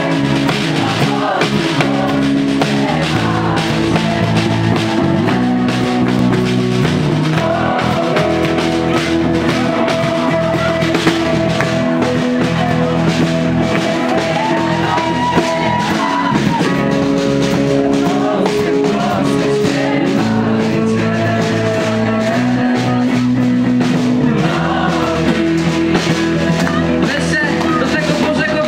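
Live rock band playing an upbeat worship song, with drum kit, electric bass guitar and singing over a steady beat.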